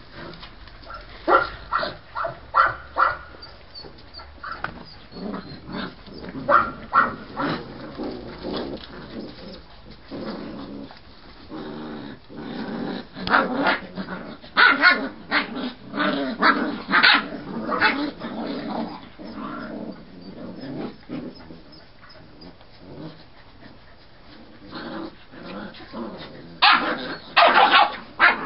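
Polish Tatra Sheepdog puppies yipping and growling as they play-fight, in clusters of short, high barks: a few early on, a busy run through the middle and a last burst near the end, with lower growling under much of the middle.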